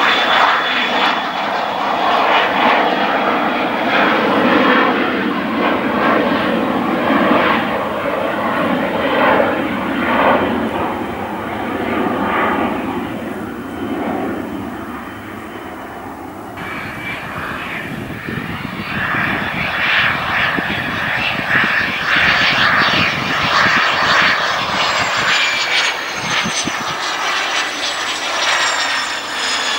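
A twin-engine business jet's rear-mounted turbofans at takeoff power, the roar fading as it climbs away. About halfway through the sound cuts abruptly to another business jet close by, with a high engine whine that falls in pitch near the end.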